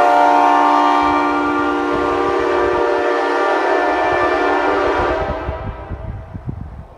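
Early-2000s Nathan Airchime K5LA five-chime train horn blowing a sustained chord, which weakens and dies away from about five seconds in as the air runs out.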